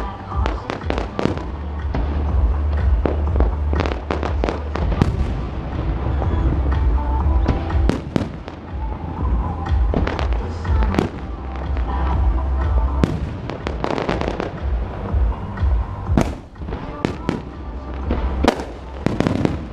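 Fireworks display: a rapid, dense run of firework bursts and crackles over deep booming, with music playing along underneath.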